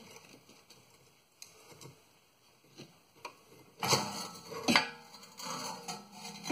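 A few faint clicks, then about four seconds in a short run of knocks and clatter from tools and equipment being handled and set down, with one more knock at the end.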